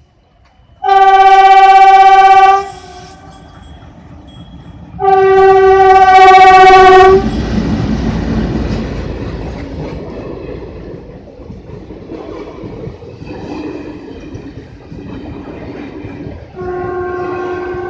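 WDG-3A Alco diesel locomotive sounding its horn in two long, loud blasts of about two seconds each. The rumble and wheel clatter of the passing passenger train follows, fading slowly, and a third, quieter horn blast starts near the end.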